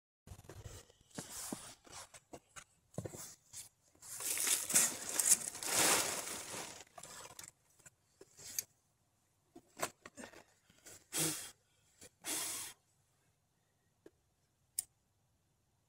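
Handling noises at a steel mesh fire pit: scraping and rustling as its metal mesh front screen is lifted off and set aside, loudest for a few seconds in the middle. Two short sharp clicks come near the end.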